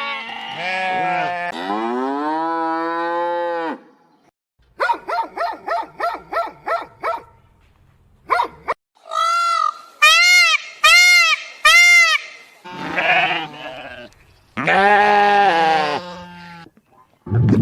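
Farm animals bleating: a string of separate calls. There is a long drawn-out call near the start, a quavering call a few seconds in, four short arched bleats in quick succession in the middle, and two more calls near the end.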